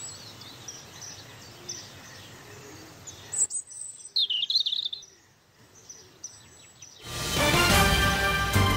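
Birds chirping and calling over faint outdoor ambience, with a louder run of chirps about four seconds in. About seven seconds in, loud music starts.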